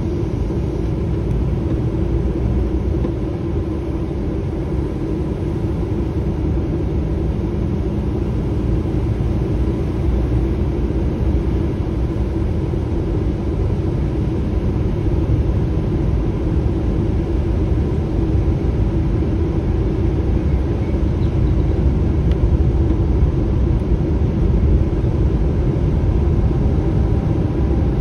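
Semi-trailer truck's diesel engine and tyres heard from inside the cab while driving, a steady low rumble that grows a little louder near the end.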